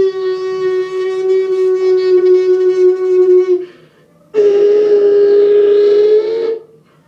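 Beatboxer's inward siren: a loud, held whistle-like tone drawn in on the breath, sounded twice. The first lasts about three and a half seconds and sinks slightly in pitch; after a short gap the second lasts about two seconds and rises slightly near its end.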